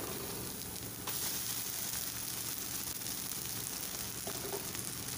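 Egg, onion and chillies frying in oil in a wok, with a steady sizzle that grows louder about a second in as the vermicelli goes into the hot pan.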